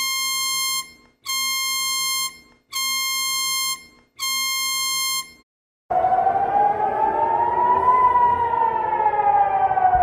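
Four blasts of an alarm horn, each about a second long on one steady pitch. From about six seconds in, a warning siren wails, rising and falling slowly in pitch.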